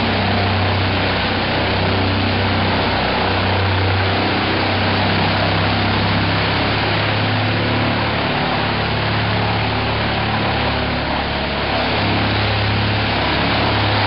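Large whole-tree wood chipper running, its engine a steady low drone under a broad rushing noise, the drone swelling and easing every few seconds.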